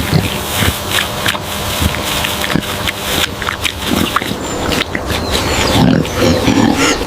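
A group of pigs grunting and squealing together in a continuous, dense din.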